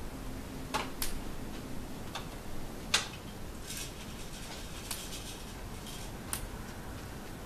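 Scattered light clicks and taps, about half a dozen at uneven intervals, the sharpest about three seconds in, over faint room noise: handling and movement noise as a handheld camera is carried through a room.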